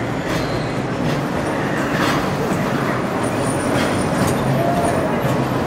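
Small ride-on Christmas train carrying children running past, its cars giving irregular clicks and knocks over the steady noise of a busy shopping-mall hall.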